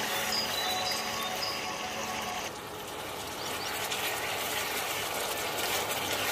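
Thick chili-tomato sambal bubbling and sizzling in a pan as it is stirred with a silicone spatula: a dense crackle of many small popping bubbles.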